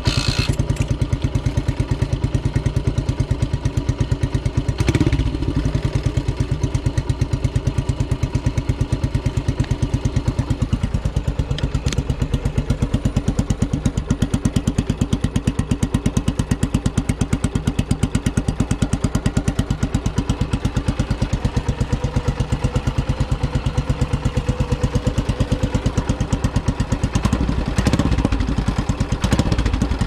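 Yamaha SR400's single-cylinder four-stroke engine, breathing through a MotorRock fishtail up-muffler, idling with a deep, fast, even beat just after being kick-started. The engine speed rises briefly about five seconds in and swells a little again near the end.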